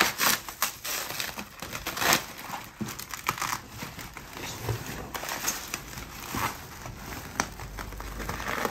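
Bubble wrap packing crinkling and rustling as it is handled and pulled away by hand, in an irregular run of crackles that is louder in the first couple of seconds and softer after.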